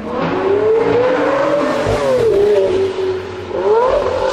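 Supercar engine revving in a road tunnel: the engine note climbs, drops about two seconds in, then climbs sharply again near the end.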